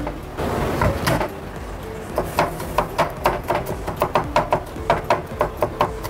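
Chef's knife chopping garlic on a wooden end-grain cutting board: quick, sharp knocks of the blade on the board, about five a second, starting about two seconds in. One or two thumps come before that as a clove is crushed under the flat of the blade.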